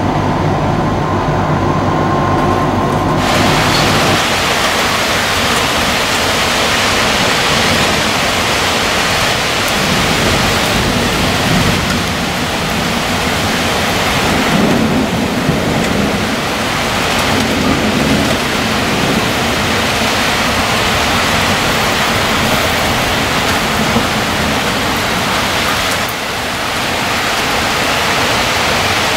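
Thunderstorm: a heavy downpour hissing steadily, starting suddenly about three seconds in, with low thunder rumbling at the start and again around the middle.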